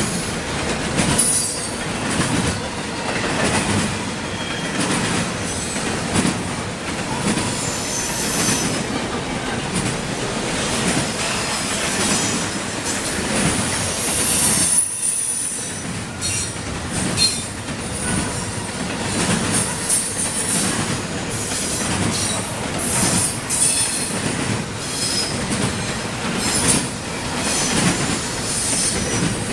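CSX intermodal freight train rolling past, its wheels screeching against the rails in high squeals, with the clicking of wheels over rail joints.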